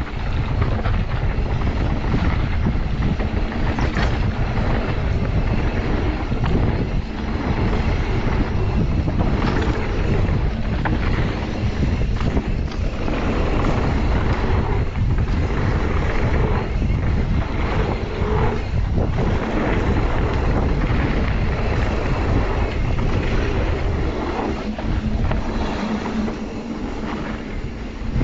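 Mountain bike ridden down a dirt trail: wind rushing over the riding camera's microphone, with tyre rumble and frequent knocks and rattles from the bike over bumps.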